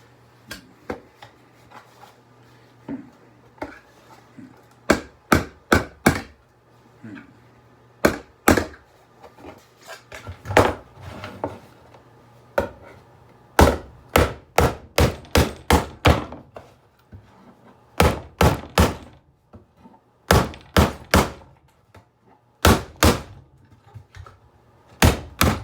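Sharp knocks and whacks as an alarm clock is broken apart, in quick runs of two to four blows with a longer run of about ten near the middle and a few light clicks at first.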